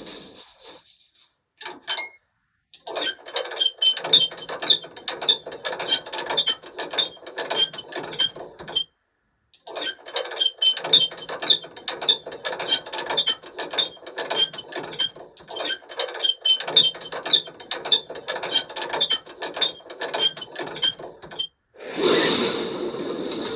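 Rapid ratcheting mechanical clicks, several a second, in two long runs with a short break between them. A louder rushing noise starts near the end.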